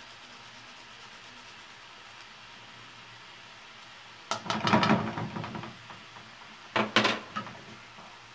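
Kitchen utensils on a frying pan of chopped onions in oil. After a few seconds of faint steady background, a second or so of scraping and clattering, then two sharp knocks: the plastic grater and a wooden spoon against the pan as the onions are stirred.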